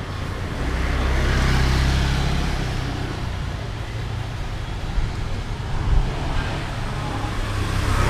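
Street traffic: a motor vehicle passes close by, its engine rumble and road noise swelling for a couple of seconds and then fading. Another swell comes near the end.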